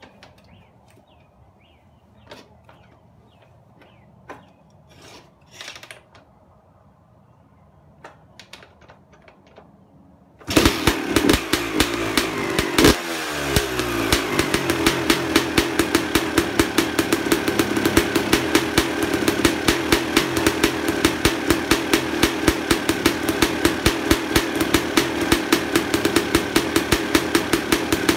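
Faint clicks and taps, then about ten seconds in a Suzuki RM250's two-stroke single-cylinder engine, fitted with an FMF Gold Series pipe and FMF Shorty silencer, starts suddenly, revs briefly with the revs falling away, and settles into a steady, rapidly pulsing idle.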